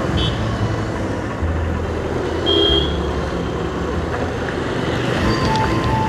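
A motorcycle running along a town road, with a steady engine note and road and traffic noise. A short beep comes about two and a half seconds in, and a simple tune of short notes starts near the end.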